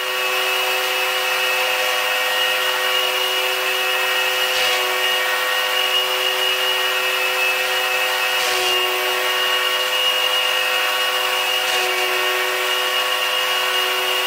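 A benchtop machine tool's motor running steadily, with a constant whine and several overtones.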